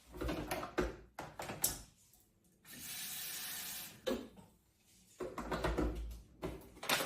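Kitchen handling sounds as a greens drink is made: clicks and knocks of a container and lid. A steady hiss starts about three seconds in and lasts just over a second.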